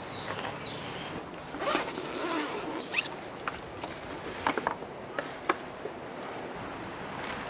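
A backpack being opened and rummaged through: a zipper is pulled and the fabric rustles about two seconds in, followed by a few sharp clicks as hands work inside the bag.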